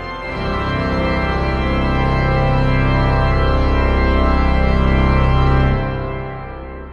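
Steinmeyer pipe organ playing full, sustained chords over a deep pedal bass, growing louder over the first seconds. The final chord is released a little before six seconds in and dies away in the church's long reverberation.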